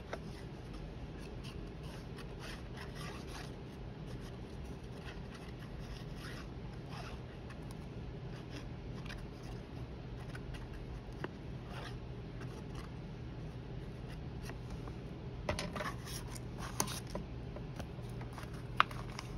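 Paper being handled and cut with scissors: faint, intermittent rustling, scraping and snipping over a steady low hum, with a flurry of louder rustles and a single sharp click near the end.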